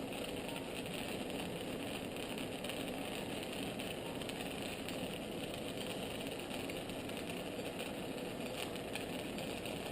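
Steady, unchanging hum of operating-room equipment.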